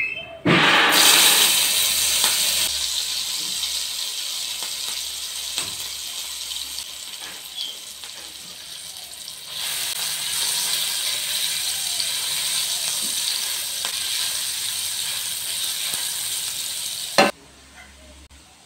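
Chopped green chillies and ginger hitting hot oil in a non-stick frying pan and sizzling loudly. The sizzle eases off, rises again about halfway as they are stirred with a silicone spatula, and cuts off suddenly near the end.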